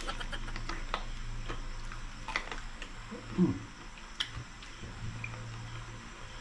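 Chewing and crunching of crispy pata (deep-fried pork leg), with scattered crackles as the crisp skin is bitten and pulled apart by hand. A short low 'mm' sound, falling in pitch, comes about three and a half seconds in.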